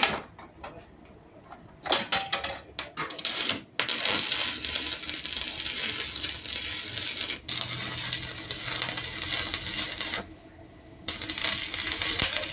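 Stick electrode arc welding on a steel truck leaf spring, after a sharp clack at the very start. The arc is struck in a few short bursts about two seconds in, then crackles and sizzles steadily, breaks off for about a second near ten seconds, and is struck again.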